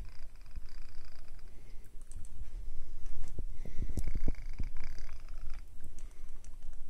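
Gear train and crankshaft of an Allchin traction engine model turning as the flywheel is spun by hand: a low whirring rattle of meshing gears, with a thin whine in the middle.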